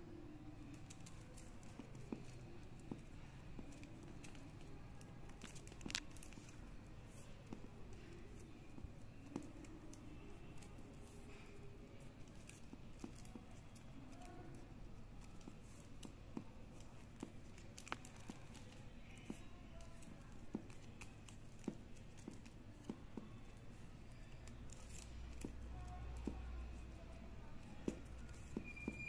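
Faint, scattered clicks and rustling of plastic craft wire strands being handled, pulled and knotted by hand, over a low steady hum. The sharpest click comes about six seconds in.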